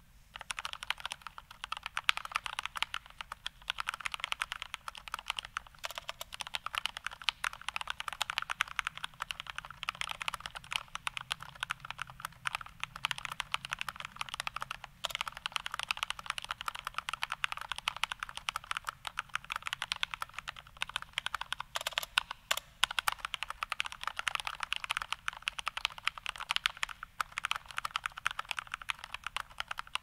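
Fast, continuous typing on a DA mechanical TKL keyboard with Gateron Red linear switches lubed with Krytox 205g0 and band-aid-modded stabilizers: a dense, unbroken stream of keystroke clacks.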